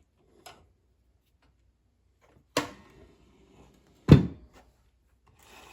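Hands-on handling of a benchtop belt and disc sander: a faint tick, a sharp knock a little past halfway, then a heavier, deeper thud about four seconds in.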